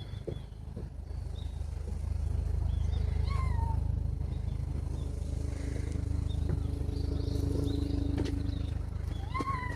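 A cat mews briefly and faintly about three seconds in, and again just before the end. Behind it is a steady low outdoor rumble, with a droning tone from about five to nine seconds in.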